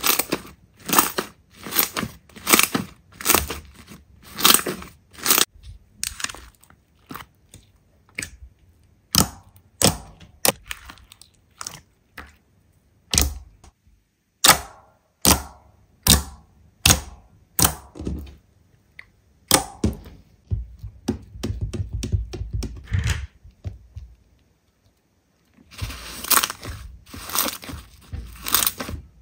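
Slime squeezed and pressed by hand, giving crisp crackling pops in a rhythm of about one to two a second, with a short silence near the end before the crackling starts again.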